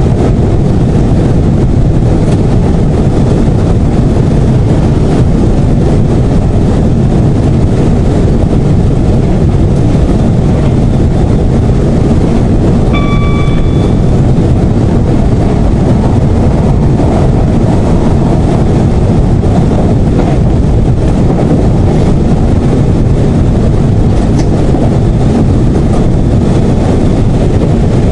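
Class 171 Turbostar diesel multiple unit running along, heard from the driver's cab: a steady diesel engine drone and wheel-on-rail noise. A short electronic tone sounds in the cab for about a second, about halfway through.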